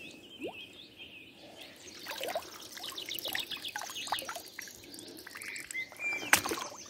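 Birds chirping and singing, with water splashing and dribbling from about two seconds in, and one sharp click near the end.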